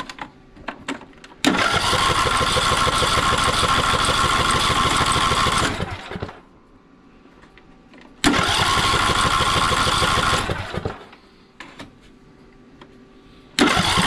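A few light clicks, then the starter cranks a John Deere LA125 riding mower's Briggs & Stratton Intek single-cylinder engine in three tries: about four seconds, then about two, then a third starting near the end. The engine turns over with a steady pulsing beat but never fires, because the ignition is giving no spark.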